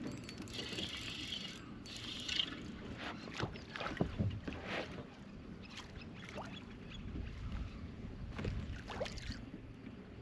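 Irregular knocks, clicks and rustles of fishing gear being handled aboard a kayak on the water, with two short hisses in the first few seconds.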